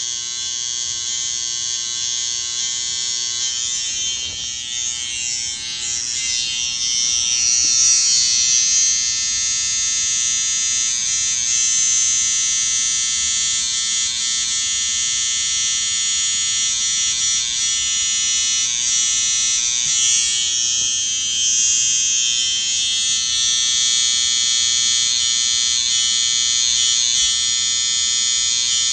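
Electric hair clippers buzzing steadily through a haircut, the high tone shifting a few times as they are worked over the head.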